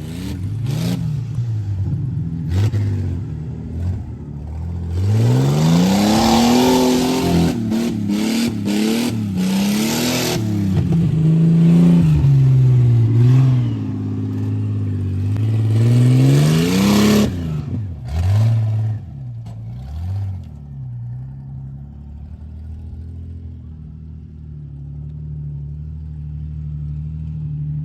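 Jeep Cherokee XJ engine revving repeatedly, its pitch rising and falling under throttle for about twelve seconds, then settling to a steady lower run.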